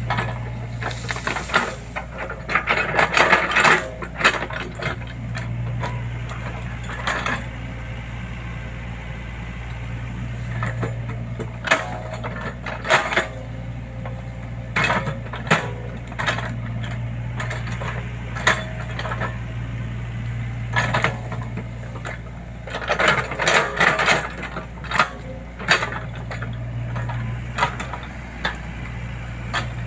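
Excavator at work: the diesel engine runs with a steady low hum while irregular metallic clanks and rattles come and go, heaviest around 3 s and again from about 23 to 25 s in.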